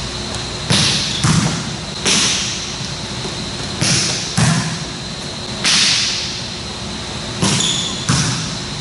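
Volleyballs being hit and bouncing on a sport-court floor: about eight sharp smacks, roughly one every second, most in close pairs, echoing in a large empty gym. A faint steady high hum runs underneath.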